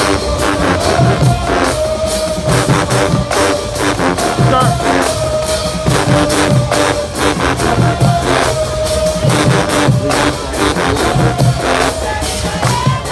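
HBCU marching band playing a tune in the stands: brass with sousaphones carrying a held melody over a steady drumline beat.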